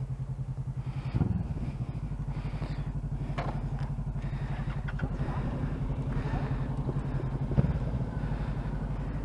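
Motorcycle engine idling steadily with an even pulse.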